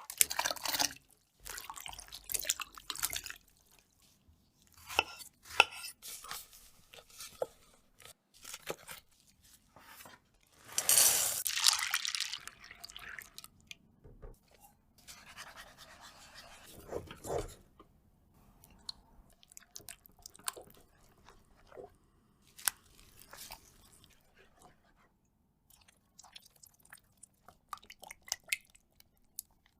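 Kitchen handling sounds from making a chocolate dessert: scattered short clicks, taps and scrapes of utensils and ingredients, with a longer, louder rustling noise about eleven seconds in.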